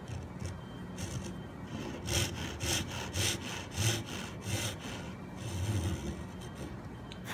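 Japanese pull saw cutting into a wooden board. A few light starting strokes give way to a run of quick, even rasping strokes, about three to four a second, then one longer, slower stroke near the end.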